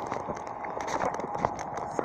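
Irregular knocks and rustling from a handheld camera being carried while walking: footsteps and handling noise on the microphone.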